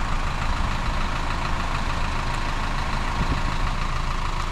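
Engine idling steadily with an even low rumble.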